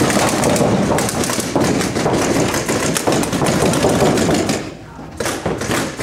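Paintball markers firing rapid strings of shots, a dense run of sharp pops with a brief lull about five seconds in.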